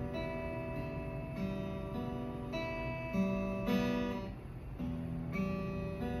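Acoustic guitar being played: ringing notes and chords that change about once a second, with a brief lull a little past the middle.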